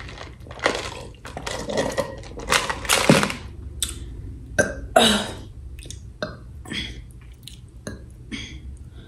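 A person making a string of short, irregular mouth and throat sounds, small burps among them, with light clicks of food containers being handled.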